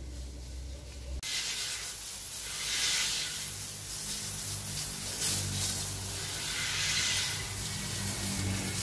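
Pesticide spray wand hissing as it throws a fine mist into fruit trees, fed by an electric-motor sprayer pump that hums low underneath. The hiss starts about a second in and swells and eases twice as the spray is swept.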